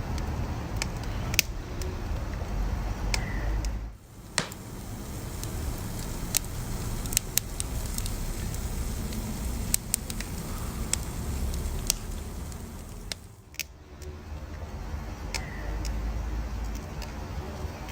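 Wood fire burning, crackling with scattered sharp pops over a low steady rumble of the flames; the sound dips briefly twice.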